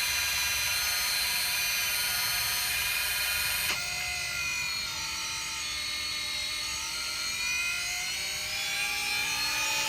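Lexus rear caliper's electric parking-brake motor, powered directly by jumper leads, whining steadily as it winds the caliper piston back. There is a click about four seconds in, after which the whine's pitch shifts and slowly wavers up and down.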